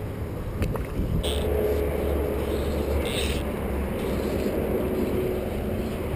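Wind buffeting the camera microphone, a steady low rumble that swells about a second in. Two brief hissing swishes, about two seconds apart, come from the fly line being cast.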